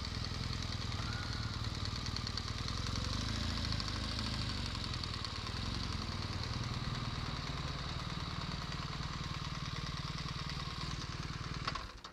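BMW GS motorcycle engine running at low revs as the bike rolls slowly into a parking spot and stops, with an even, fast pulse; the sound cuts off suddenly near the end.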